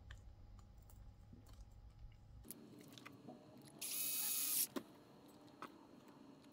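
Light clicks of small RC-car parts being handled, with a short, loud hissing rustle about four seconds in.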